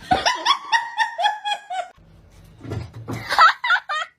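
A dog barking in two quick runs of short barks, the second run higher-pitched.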